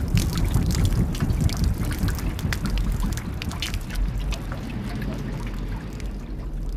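Water running and splashing in a sewer channel, with many small sharp splashes over a steady low rumble.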